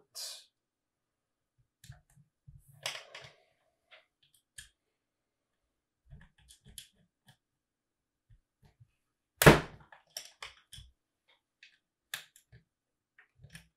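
Scattered small metallic clicks and taps from a hex key and small parts on the rotator's metal housing as its bearings are worked loose, with one louder knock about nine and a half seconds in.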